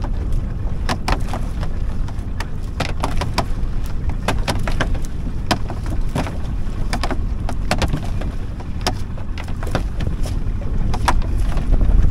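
Water splashing in many quick, sharp bursts over a steady low rumble.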